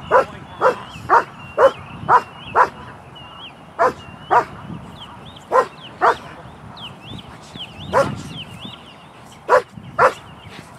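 Large protection dog barking at a decoy in a padded bite suit: short sharp barks, about two a second at first, then further apart.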